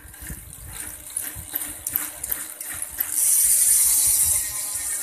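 BMX cassette hub freewheeling: scattered ratchet-pawl clicks, then about three seconds in a loud, high buzz of rapid clicking for about a second as the wheel spins on. The pawl spring has been modified, which makes the hub somewhat noisy.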